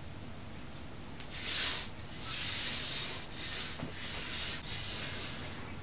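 Hands rubbing and sweeping a pile of crumbled powdery chunks across a marble surface: a dry, hissing scrape in about five strokes. It starts about a second in, and the first stroke is the loudest.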